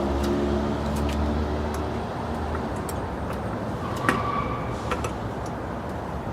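A vehicle engine's low hum fading away over the first couple of seconds, then scattered light clicks, with a sharper click about four seconds in.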